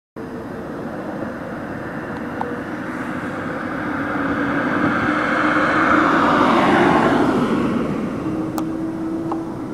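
A car driving past on the street: its engine and tyre noise grows louder, is loudest about six to seven seconds in, then fades away.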